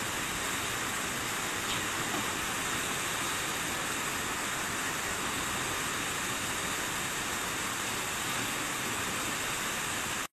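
Steady rushing of a river in flood, with the water surging over the deck of a suspension bridge.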